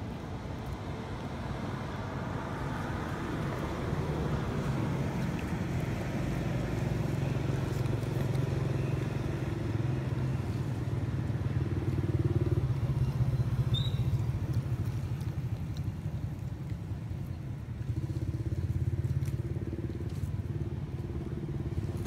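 An engine running steadily, a little louder after the first few seconds.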